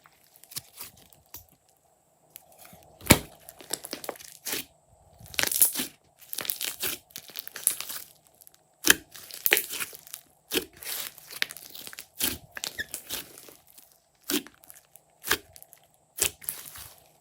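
Slime being squished and stretched by hand, making irregular clicks, crackles and pops, with one sharp loud click about three seconds in.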